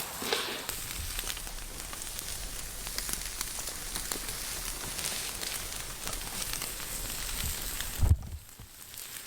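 Burgers sizzling and crackling over a very hot campfire, hot enough that they are starting to burn. A single thump about eight seconds in, after which the sizzle dies down.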